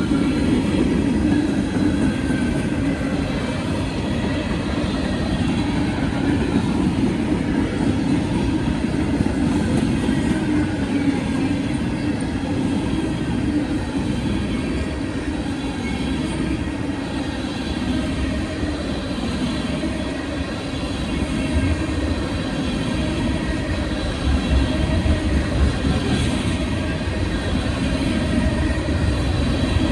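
Freight train cars rolling past: a steady rumble of steel wheels on the rails, with a faint high wheel squeal running along above it.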